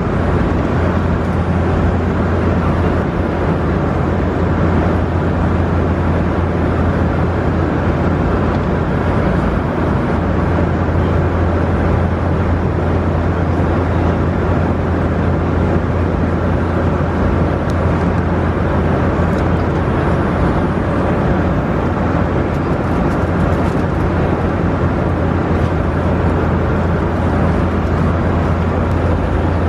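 Steady drone of an airliner cabin in flight: engine and airflow noise with a strong low hum, unchanging throughout.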